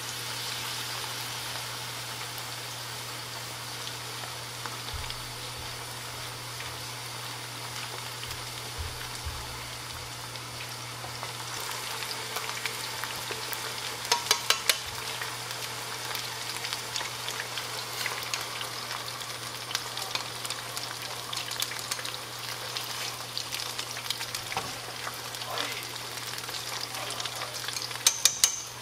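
Pork back ribs deep-frying in a shallow pan of hot oil: a steady sizzle with fine crackling, a little louder in the second half. A quick run of sharp clicks about halfway through, and a few more near the end.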